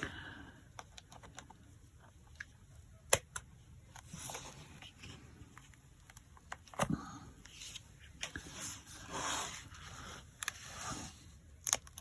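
Paper and Velcro dots being handled and pressed on a craft table: scattered light clicks and taps, one sharp click about three seconds in, and several brief scraping, rustling sounds.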